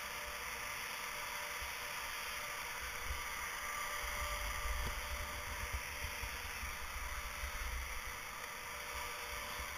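Steady hiss with low wind rumble on a GoPro camera's microphone, the rumble growing stronger and gusty for a few seconds in the middle as the skier moves off down the slope.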